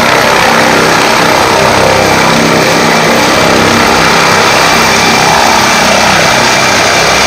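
Helicopter lifting off: loud, steady rotor and engine noise with a thin, high whine on top.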